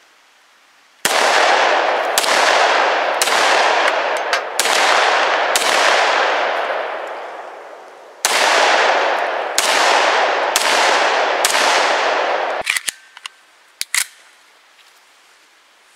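Handgun shots fired in two strings: five shots about a second apart, then a short pause and four more, each with a long echoing tail. A few short sharp clicks follow near the end.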